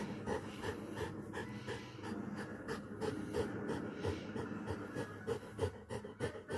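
Golden retriever panting in quick, even breaths.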